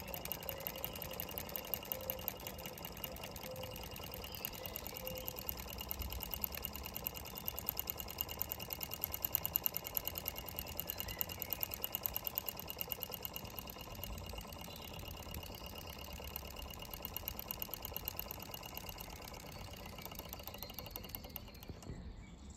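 Mamod MM2 toy steam engine's single cylinder running fast with a rapid, even clatter of steam beats, slowing and stopping near the end as the boiler runs out of steam.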